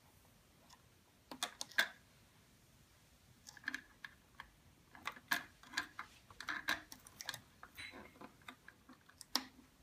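Light plastic clicks and taps of tiny doll shoes being set into a small drawer of a plastic toy closet: a few about a second in, then a busier irregular run from about three and a half seconds until near the end.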